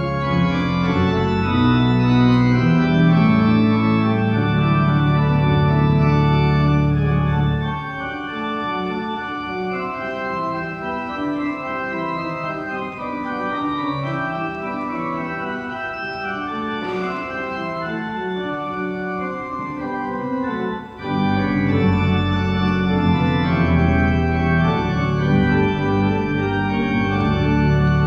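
Church organ playing held chords with a deep pedal bass. About eight seconds in the bass drops out and the music goes on more quietly in the upper voices; about 21 seconds in the bass and the fuller sound return.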